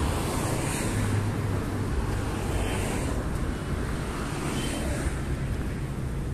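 Street traffic noise: a steady low rumble of passing cars, with tyre hiss swelling and fading about every two seconds.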